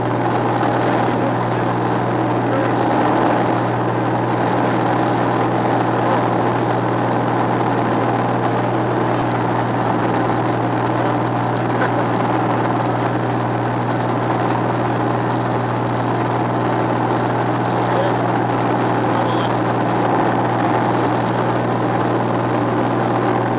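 Light single-engine propeller aircraft's piston engine and propeller droning steadily, heard from inside the cockpit.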